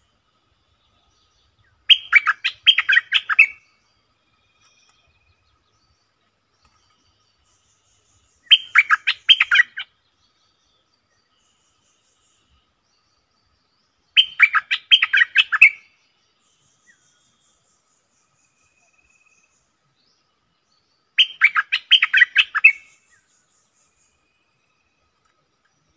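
Stripe-throated bulbul singing: four bursts of quick, bubbling chattering notes, each about a second and a half long, spaced about six seconds apart. It is a caged decoy bird calling to lure wild bulbuls.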